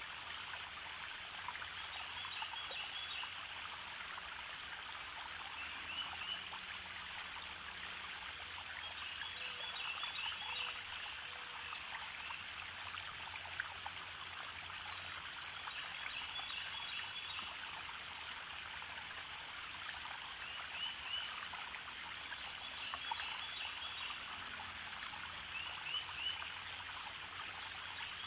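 Steady running-water ambience, like a stream, with short bird chirps coming back every few seconds.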